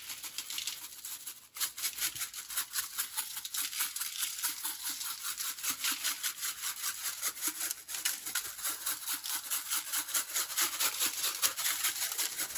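Montreal steak seasoning shaken from its container onto a rack of ribs on aluminum foil: a rapid, gritty, rhythmic rattle, with brief pauses about a second and a half in and again near the middle.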